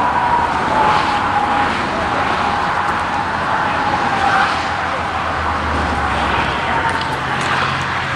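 Steady noise of highway traffic going by on the road beside the shoulder, with a thin wavering whine running through it and a deeper rumble joining a little past halfway.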